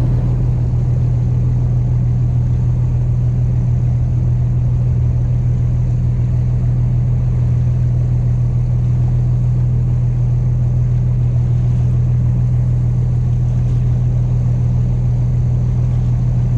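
Lobster boat's engine running steadily, a constant low drone.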